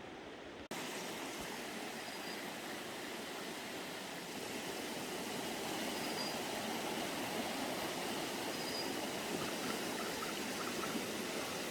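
Creek water rushing steadily, cutting in suddenly under a second in.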